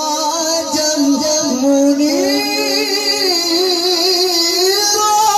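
Devotional singing of a naat: a single voice holds long notes that bend and glide in pitch.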